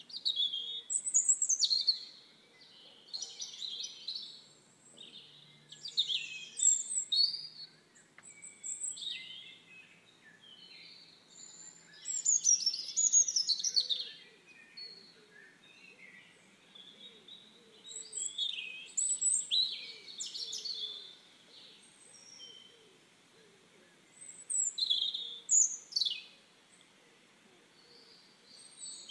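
Small birds singing: bursts of high chirps and quick, partly downward-sweeping whistled notes every couple of seconds, with short quiet gaps between phrases.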